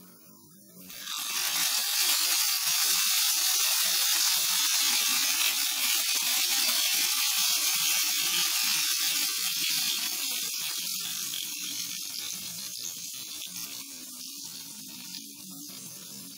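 Tarka of hot oil and fried onions poured onto cooked malka daal (whole masoor), sizzling and crackling hard from about a second in, then slowly dying down over the last few seconds as the oil cools into the daal.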